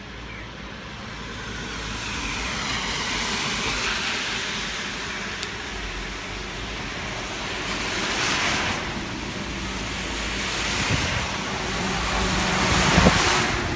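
Cars passing on a wet road, their tyres hissing through the water. The hiss swells and fades several times, with the loudest pass near the end.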